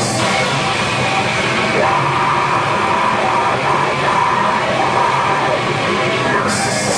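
Grindcore band playing live: loud distorted guitars, bass and drums, with shouted vocals in the middle of the passage.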